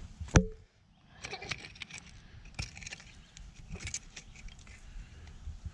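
A sharp knock near the start, then irregular dry scraping and small clinks of glass shards and dirt being worked by hand around a buried glass bottle.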